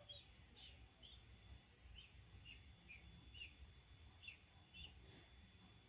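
Faint, short high chirps, each falling slightly in pitch, repeating about twice a second over a quiet low hum.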